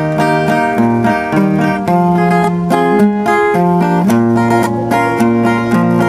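Acoustic guitar strummed in a steady rhythm, playing a song's introduction with bass notes moving under the chords.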